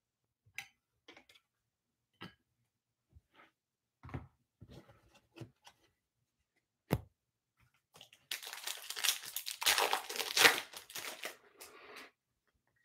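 A few light clicks and taps from baseball cards and plastic card holders being handled. About eight seconds in, a Bowman Chrome foil pack wrapper is torn open and crinkled for about four seconds; this is the loudest sound.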